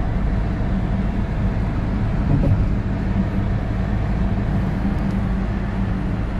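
Steady engine hum and tyre road noise heard inside a Suzuki car's cabin as it drives at cruising speed.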